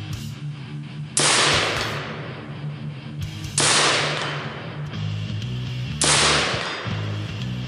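Three rifle shots about two and a half seconds apart, each a sharp crack with a tail that dies away over about a second, over background music.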